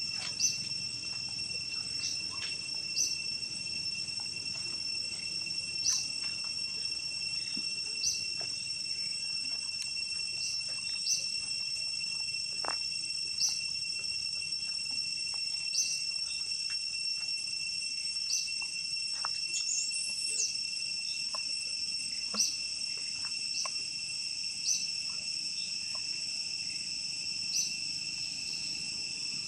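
Forest insect chorus: a steady, high, ringing drone at a couple of pitches. A short high chirp repeats about every two and a half seconds over it, and one higher call rises and falls about two-thirds of the way through.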